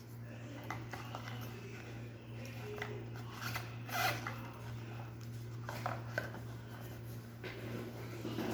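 Quiet handling of wristwatches and their packaging: scattered small clicks and short rustles, over a steady low hum.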